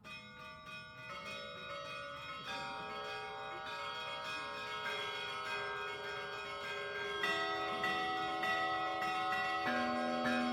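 Russian Orthodox church bells rung by hand: rapid strokes on small, high bells start suddenly and build, growing steadily louder. Deeper bells join about seven and ten seconds in.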